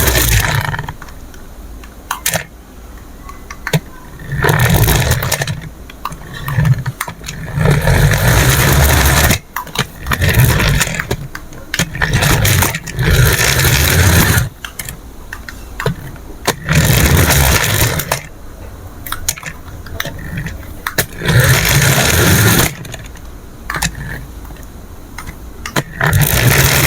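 Remote-control toy vehicle running in repeated bursts a second or two long with short pauses between, as it is driven in stops and starts.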